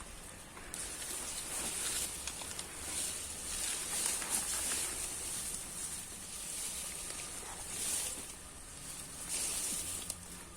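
Rustling and shuffling of an airsoft player moving in gear, swelling and fading every second or two.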